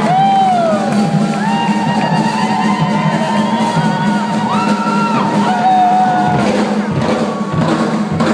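Rock band playing live with a drum kit, heard loud and steady as a dense wash of sound, with crowd whoops mixed in.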